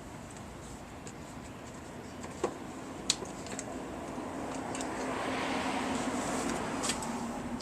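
A few light clicks and taps of parts being handled, then a broad rushing noise that swells and fades over about three seconds, like a vehicle passing.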